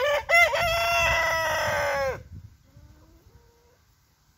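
Buff Orpington rooster crowing once, loud: two short opening notes, then a long held note of about two seconds that drops away at the end.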